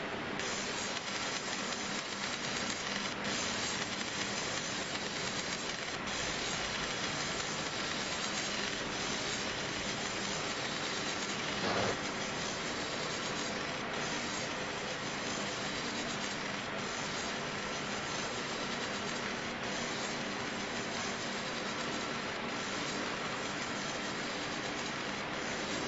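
100 W fiber laser engraving and cutting 0.5 mm brass sheet, giving a steady hissing sizzle with a faint steady hum underneath. About halfway through it swells briefly louder.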